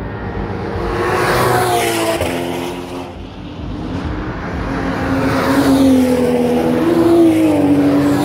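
Racing cars passing one after another at speed, engines at high revs. The sound swells about a second and a half in and again, louder, near the end, each time falling in pitch as a car goes by.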